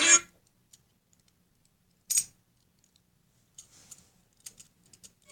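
A short, sharp scrape or rattle about two seconds in, then a few faint, scattered clicks and taps, as of small objects being handled.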